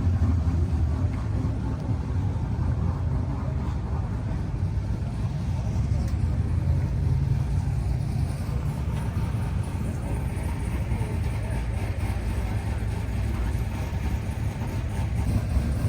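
A car engine idling steadily, a low, even rumble.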